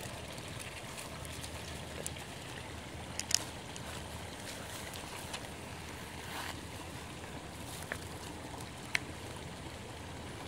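Steady outdoor background hiss of wind and water, broken by a few short sharp clicks, the loudest a little over three seconds in.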